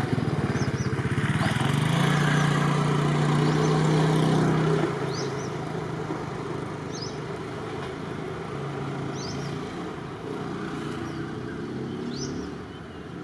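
Diesel railway engine running steadily, louder for the first few seconds and then quieter. A short high chirp, likely a bird, repeats about once a second over it.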